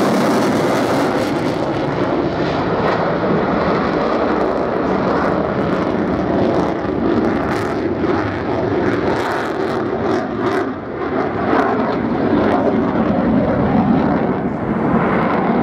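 Swiss Air Force F/A-18C Hornet's twin General Electric F404 turbofans in display flight: a loud, steady jet rumble. Its high hiss fades about a second and a half in as the jet draws away.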